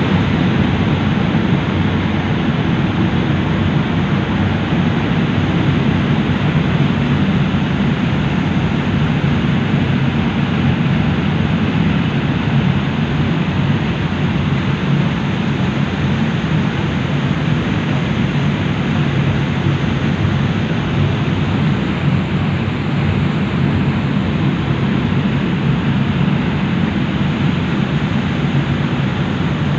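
Ferry's engines droning steadily under the rushing of its churning wake, heard from the open stern deck.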